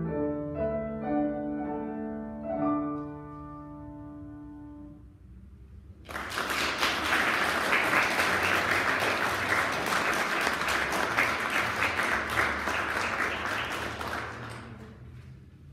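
Grand piano playing the final notes of a song, each ringing out and dying away. After a brief pause, the audience applauds from about six seconds in, and the clapping fades out near the end.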